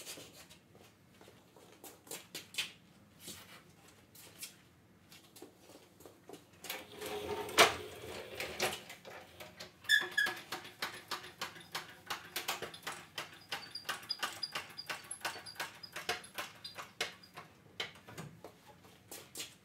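Scissor lift table being pushed on its casters: a quick, even run of ticks, about four a second, with thin high squeaks through the second half. A louder knock comes a little before it, about a third of the way in.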